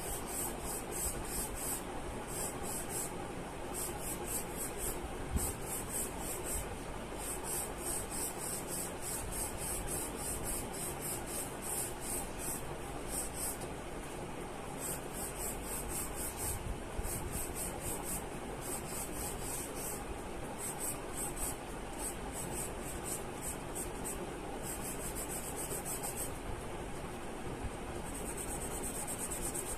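Charcoal pencil rubbing and scratching on drawing paper in quick repeated strokes. Behind it, high pulsing chirps of crickets run in bursts and become a steady trill near the end.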